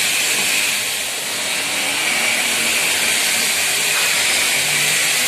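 Steady, even hissing noise with a slightly brighter whistle-like band in it, unchanging throughout.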